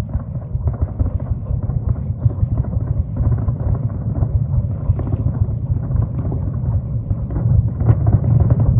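Wind buffeting the microphone on a boat, a heavy, gusty low rumble that grows a little louder near the end.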